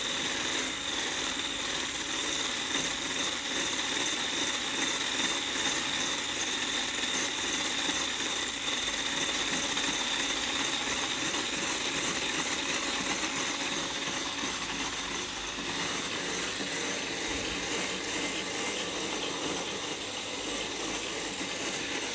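Electric stick whisk running steadily, its wire whisk attachment beating egg whites in a glass bowl to a light meringue. The motor gives a steady high whine throughout.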